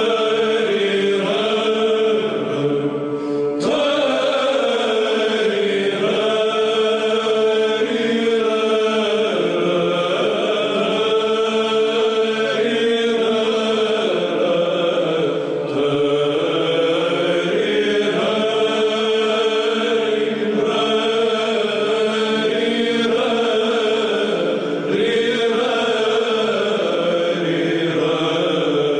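Orthodox Byzantine chant: voices singing a slow melody over a steady held drone note.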